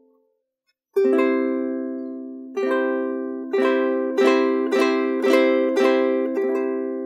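Handmade ukulele strummed. After a brief silence, one chord is struck about a second in and left to ring and fade. From about two and a half seconds in, chords are strummed roughly every half second.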